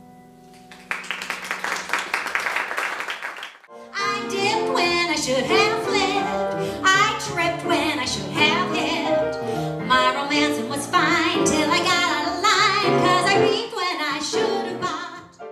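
A held piano chord dies away, then an audience applauds for a few seconds. After a cut, about four seconds in, a woman sings a cabaret song with wavering vibrato to grand piano accompaniment, which breaks off abruptly at the end.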